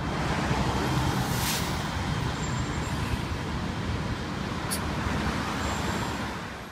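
Street traffic with a bus among the passing vehicles: a steady engine and tyre rumble, with a short hiss about a second and a half in.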